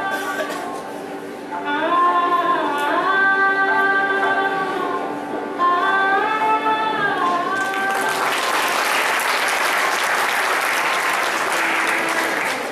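A melody with gliding, wavering notes plays for several seconds, then gives way to an audience applauding from about eight seconds in.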